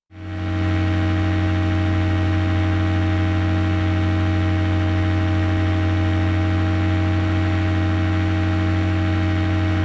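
Steady in-flight drone of a light aircraft's rebuilt Rotax engine and propeller, a constant low hum with steady overtones. It cuts in suddenly at the start and holds unchanged at cruise power.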